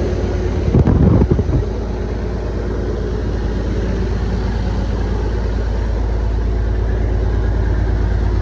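Semi truck's diesel engine running at idle, with a brief loud irregular surge about a second in before it settles back to a steady low idle.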